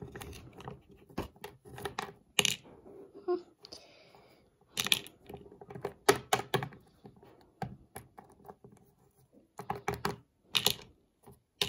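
Hard plastic Littlest Pet Shop toy figures moved by hand and set down on a wooden tabletop: irregular clicks and taps, with a few sharper knocks.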